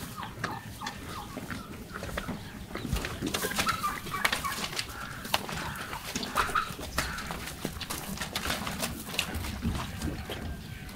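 Farmyard sounds: chickens clucking now and then over the irregular rustling and crunching of calves pulling at and chewing hay at a trough.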